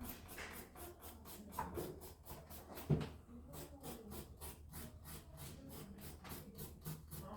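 Rapid back-and-forth rubbing strokes of a nail file on a fingernail, about four to five strokes a second, with a low steady hum underneath and one sharp knock about three seconds in.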